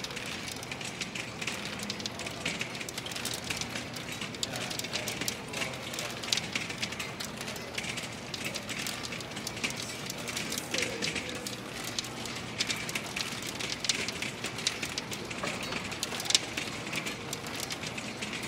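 Probability machine (Galton board) running: a steady rain-like clatter of many small balls clicking down through its pegs.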